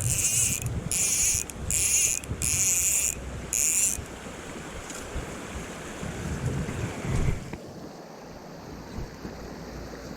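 Fly reel's click drag buzzing in five quick pulls as line is stripped off the reel, over the steady rush of a mountain stream and wind on the microphone. After the fourth second only the stream noise goes on, with a brief rumble of handling or wind about two-thirds of the way in.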